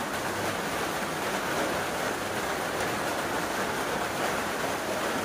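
A steady, even rushing noise with no distinct strikes or tones.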